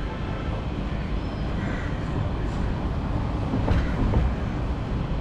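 Road vehicle noise: a steady low rumble with traffic hiss, and a few sharp knocks or rattles a little before four seconds in.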